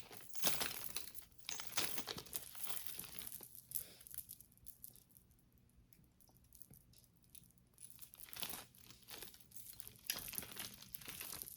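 Plastic bag crinkling as it is handled and opened, in crackly spells, with a quieter stretch of a few seconds in the middle.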